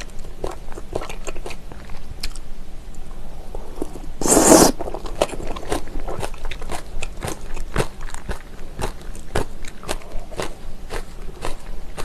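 Close-up chewing of spicy Korean seasoned raw-oyster salad (saenggul muchim) with vegetables: a steady run of wet, crunchy, crackling bites and mouth clicks, with one louder noisy burst about four seconds in.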